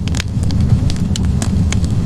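Wood fire burning in a fireplace: a steady low rumble of flames with several sharp crackles and pops from the burning logs.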